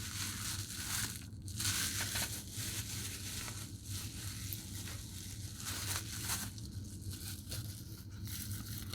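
Watch packaging being unwrapped by hand: irregular crinkling and rustling of wrapping material, louder in patches.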